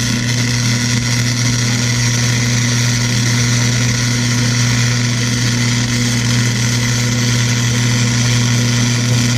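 MIG welder arc running a continuous bead: a steady crackling sizzle over a constant electrical hum, filling a crack in an exhaust manifold.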